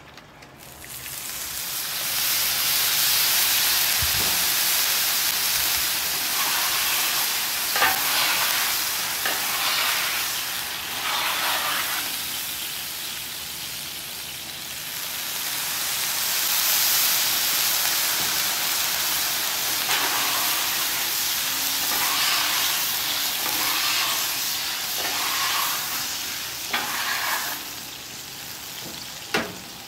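Water sizzling and steaming on the hot steel of a Camp Chef flat top griddle, with a metal scraper pushed across the plate in repeated strokes. The hiss starts about a second in; this is warm-griddle cleaning, lifting burned-on sugary teriyaki residue.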